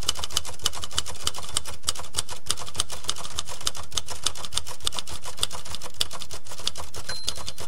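Typewriter typing sound effect: a fast, irregular run of sharp key clacks, several a second, over a steady low hum.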